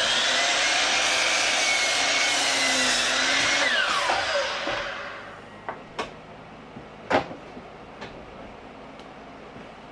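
Sliding compound miter saw running and cutting a wooden floor joist to length. About three and a half seconds in, its motor is released and the whine falls as the blade spins down. A few sharp knocks of lumber being handled follow.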